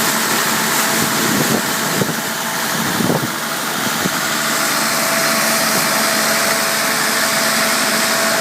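Diesel engine driving a double-suction pump, running steadily, with a few short knocks in the first few seconds.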